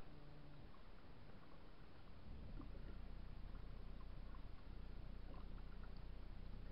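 Faint water lapping and dripping against a kayak's hull, small scattered ticks over a low steady rumble.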